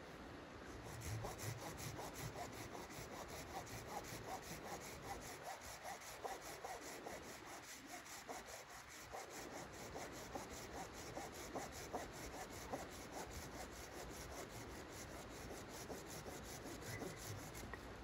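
Hand saw cutting wood with even, rhythmic back-and-forth strokes.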